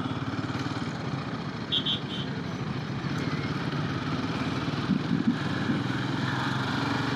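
Royal Enfield Himalayan 450's single-cylinder engine running steadily while the bike is ridden, with road noise. A short high-pitched beeping of a few quick pulses comes about two seconds in.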